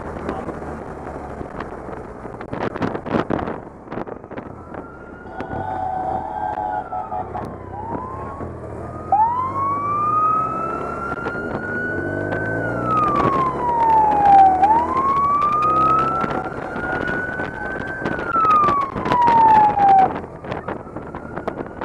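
Police motorcycle sirens wailing in slow rising and falling sweeps, two overlapping, over the sound of the motorcycles' engines running. The sirens grow louder about nine seconds in and stop near the end.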